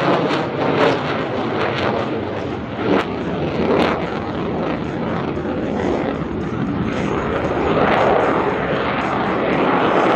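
CF-18 Hornet's twin General Electric F404 jet engines in afterburner, a loud roar. Sharp crackling pops run through the first few seconds, then it settles into a smoother rumble.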